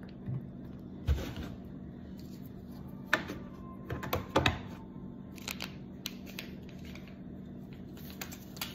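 Plastic water jug and bottle being handled and set down: a few sharp knocks in the first half, then lighter clicks and a crinkle of a drink-mix packet being handled near the end.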